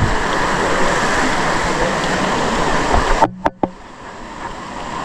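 Steady rush of falling water, which cuts out abruptly about three seconds in with a couple of sharp clicks; a quieter rush of water then builds back up.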